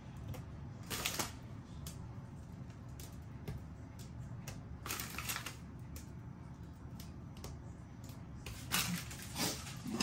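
Oreo cookies being snapped and crumbled by hand into a mixing bowl: a few small clusters of dry, crisp cracking clicks, over a low steady hum.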